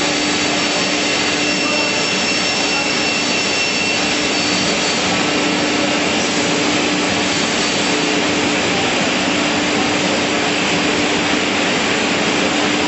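ZPF beam saw running: its 11 kW saw motors and scoring units spinning with dust extraction, giving a loud, steady whirring rush with a constant low hum.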